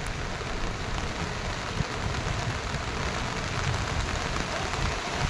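Steady hiss of rain falling on floodwater, with irregular low rumbling underneath.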